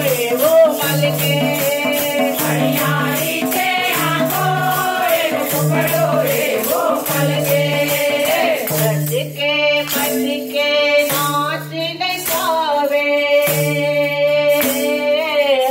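Gujarati devotional folk music. A group of hand-held kartal clappers and small brass cymbals jingles in a steady, even rhythm over a melody line and a regularly pulsing bass note.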